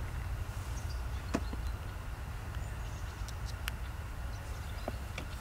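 Outdoor lakeside ambience: a steady low rumble with a handful of sharp clicks scattered through, and faint short bird chirps.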